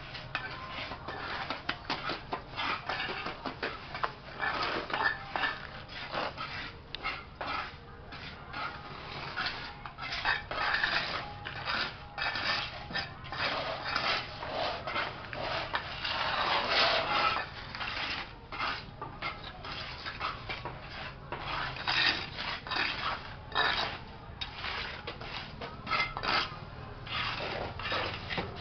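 Irregular scraping and clinking of hand tools on wet cement and the concrete floor, as mortar is worked around a cement jar base.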